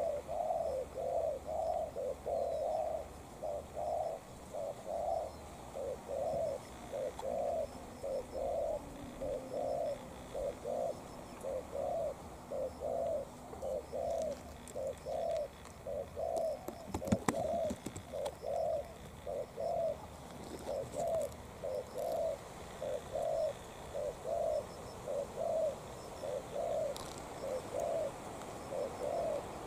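Spotted dove cooing: a long, steady series of short low coo notes, about three every two seconds, kept up without a break. A brief burst of clicks comes about halfway through.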